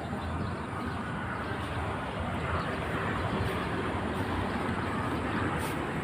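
Steady rumble and hiss of traffic on the toll road.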